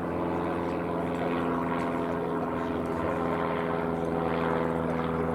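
A steady machine drone with a low, even hum and several held tones, like a motor or engine running at constant speed.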